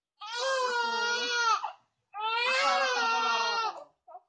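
Newborn baby crying: two long wails, each about a second and a half, with a short breath between them.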